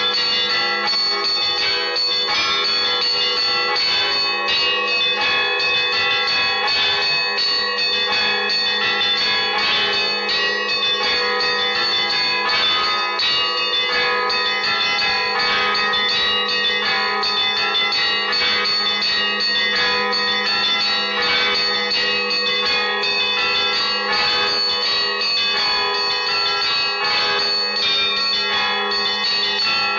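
Russian church bells of a cathedral bell tower rung by a bell ringer in a continuous peal: rapid strokes on the smaller bells over the steady deep hum of a larger bell.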